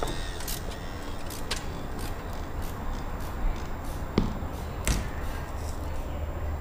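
Scattered light clicks and knocks of windshield wire-cutout tools being handled on the glass, over a steady low hum; the sharpest knock comes about four seconds in, with another about a second later.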